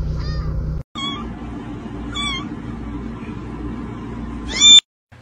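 Kittens meowing: one small meow over a car's low rumble, then, after a sudden cut, three high-pitched meows, the last one the loudest.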